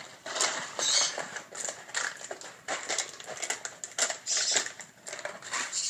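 Two seven-week-old puppies play-wrestling on a tile floor: irregular scuffling and scrabbling of paws and claws, in short bursts.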